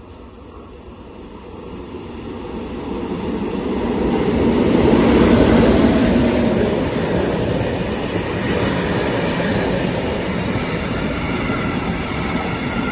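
FS E652 electric locomotive hauling a freight train of covered wagons through a station at speed. The noise builds as it approaches, is loudest as the locomotive passes about five seconds in, then the wagons' wheels keep running past steadily.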